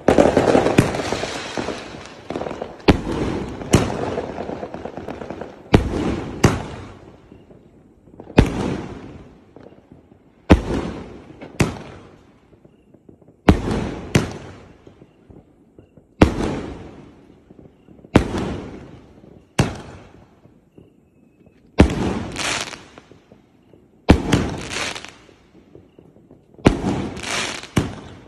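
A 2-inch, 49-shot consumer firework cake firing: sharp bangs every one to two seconds, often in close pairs, each dying away over a second or so.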